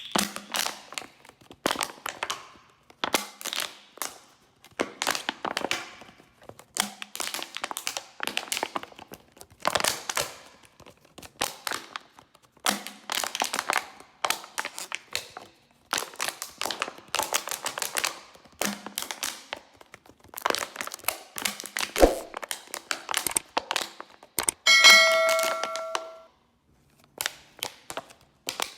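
A run of bottle handling sounds: about a dozen short bursts of crinkling and clattering, a sharp thunk late on, then a bottle struck so that it rings with a clear ding for about a second.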